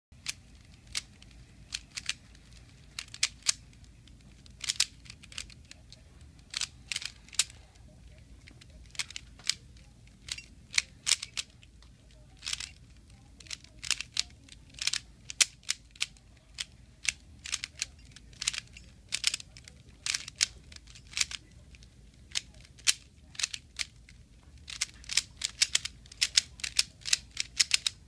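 Plastic Rubik's cube being turned by hand, its layers snapping round in a series of sharp clicks, one to three a second, coming in quicker runs near the end.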